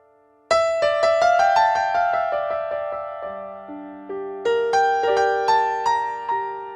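Background music on solo piano: a quick run of single struck notes about half a second in, then slower notes, each ringing and fading.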